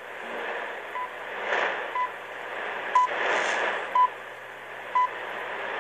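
RNZ International's AM shortwave broadcast on 15720 kHz, heard through a Sangean ATS-909X: hourly time-signal pips, five short beeps one second apart, counting down to the top of the hour. Underneath is a steady shortwave hiss that swells and fades.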